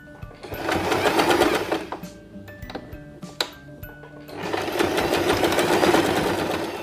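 Sewing machine stitching through stretchy jersey fabric in two runs: one about half a second in lasting roughly a second and a half, and a longer one starting about four seconds in.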